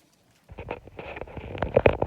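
Puppies eating their first solid food: a dense run of quick, wet lapping and smacking clicks that starts about half a second in and grows louder toward the end.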